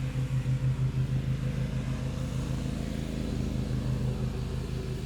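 A steady engine drone with a fast, even pulsing in its low hum, running without a break.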